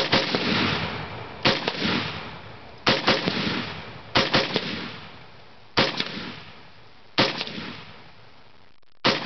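AR-15 rifle fired in steady single shots, seven in all about a second and a half apart, each sharp crack followed by a rolling echo that dies away over about a second.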